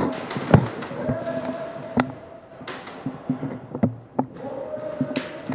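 Scattered sharp cracks and knocks in an echoing indoor airsoft arena, single airsoft shots and BB hits, a second or more apart, with a faint held tone coming and going between them.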